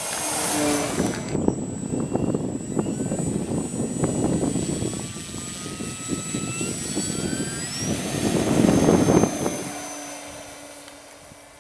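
Electric motor and propeller of a Parkzone F4U-1A Corsair RC plane. The motor whine rises in pitch as it throttles up for takeoff, is loudest a couple of seconds later as the plane passes, then fades as it climbs away.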